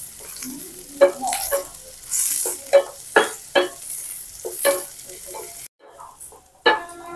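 Sliced onions sizzling in hot oil in a stainless steel pot, with a wooden spatula scraping across the pan in short repeated stirring strokes as they fry toward brown. The sound breaks off for about a second near the end, then resumes.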